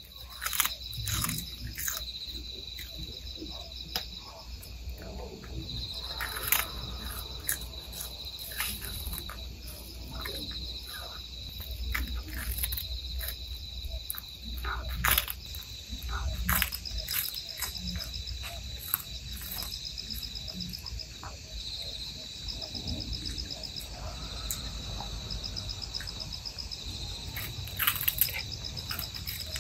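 A cat chewing and crunching capelin, with sharp irregular crunches, over steady chirping of crickets.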